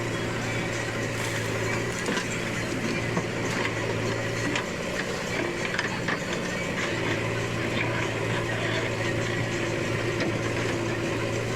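Heavy diesel machinery engine running steadily at an even pitch, with a few short knocks over it.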